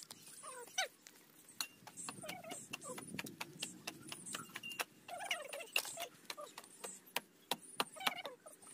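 A dog whimpering in short rising and falling whines, amid many sharp clicks and taps.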